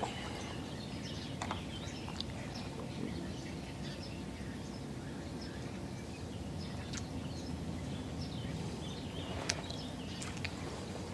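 Birds chirping and calling here and there over a steady low background noise, with a few faint ticks.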